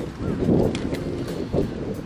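Wind buffeting the microphone in gusts, with a few light clicks and knocks.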